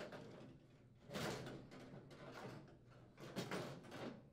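Sheet-metal outer cabinet of a GE over-the-range microwave being slid down over its frame: faint metallic scraping and light knocks, loudest about a second in and again near the end.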